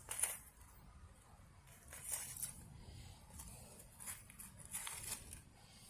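Faint scattered rustles and light clicks of hands handling plants and pots while a slug is picked off.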